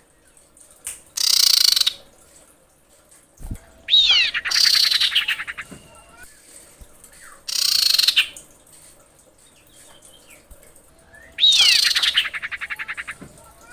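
Female common iora (cipoh) calling: four bouts of call. Two are short, harsh rasping bursts, and two are a quick downslurred whistle running into a fast rattling trill.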